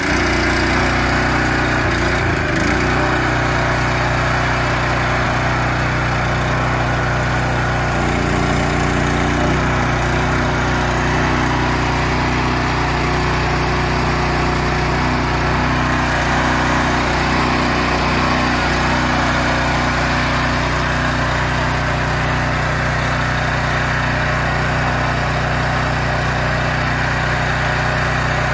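Small gasoline engine on a self-propelled guardrail post driver running steadily, powering the machine's hydraulics; its note shifts briefly twice, a couple of seconds in and again about eight seconds in.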